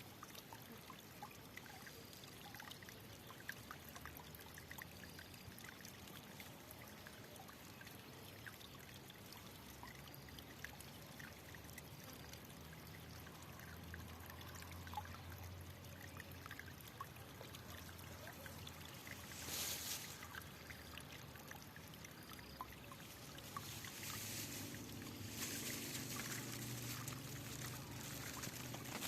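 Water trickling and flowing, faint, with a louder brief rush about two-thirds of the way through and another, longer one near the end.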